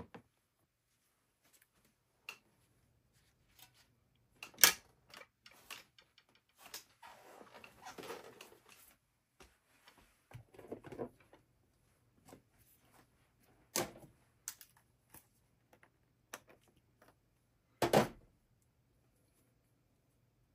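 Handling sounds from painting at the easel: a few separate sharp knocks and clicks of tools set down or tapped, the loudest about four and a half and eighteen seconds in, and a brief scrubbing sound for a couple of seconds in between.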